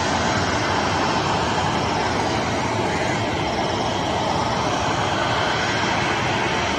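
Boeing 737's twin jet engines running steadily at low taxi power as the airliner rolls slowly on the runway, a constant even rush with no spool-up.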